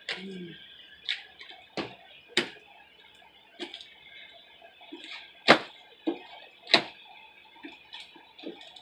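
Sticky glue slime being kneaded and pulled by hand, giving irregular wet snaps and smacks, about one every second. The slime is still sticky because it has not yet taken enough activator.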